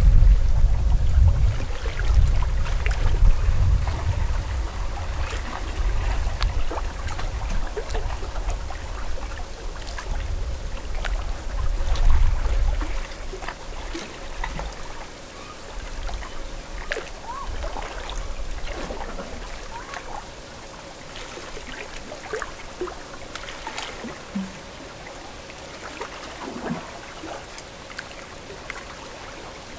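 Lake water lapping and trickling at the shoreline, with small splashes and gurgles. A strong low rumble runs under it for the first half and stops about halfway through.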